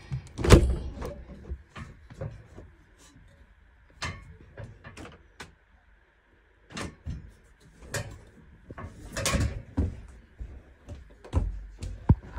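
A window being shut with a loud thump about half a second in, followed by scattered knocks, taps and rustles of the phone being handled and carried.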